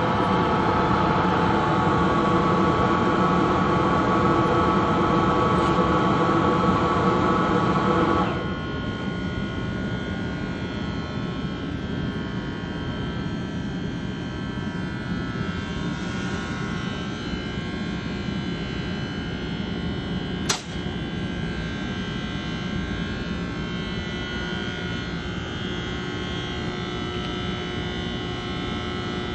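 Bombardier ALP-45DP locomotive standing at the platform, its cooling fans and electrical equipment giving a steady whining hum with several steady tones. About eight seconds in, a louder layer of tones cuts off suddenly and a quieter hum carries on. One sharp click comes about twenty seconds in.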